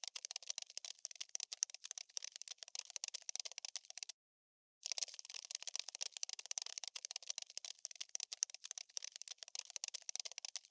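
Looped sound effect of a cockroach scuttling: a dense, rapid run of tiny dry scratching clicks. About four seconds in it cuts to dead silence for under a second, then starts over.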